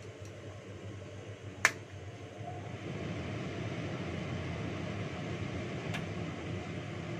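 A sharp click about one and a half seconds in, then a kitchen range-hood extractor fan comes on and runs steadily, noticeably louder from about three seconds in. A fainter click follows near the end.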